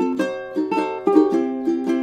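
Ukulele strumming a rhythmic pattern of chords, each strum ringing and fading quickly before the next.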